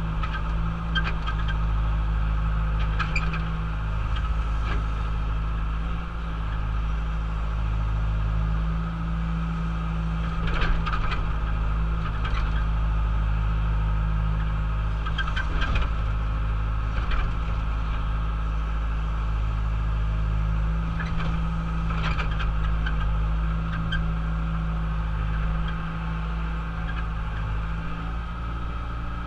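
John Deere 190E excavator's diesel engine running steadily while the machine works, with occasional short knocks from the bucket and boom.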